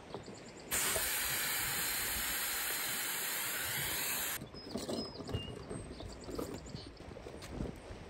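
Air hissing hard and steadily out of the valve of a large inflatable floor mat being deflated, starting abruptly under a second in and cutting off after about three and a half seconds; then quieter rustling and knocks as the flattened mat is handled.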